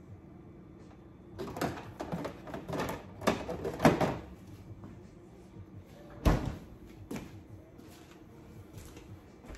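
Things being moved and clattering about in an open refrigerator for a few seconds, then the refrigerator door shut with a single heavy thud about six seconds in.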